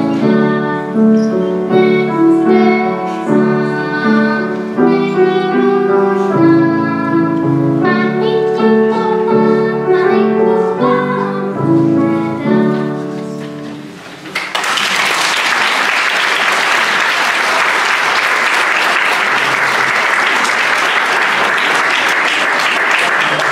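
Singing with piano accompaniment, ending about fourteen seconds in, followed by steady audience applause.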